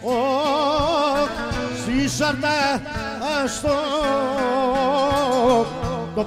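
Greek folk clarinet playing an ornamented melody with wide vibrato and quick runs, over a live band's bass and percussion.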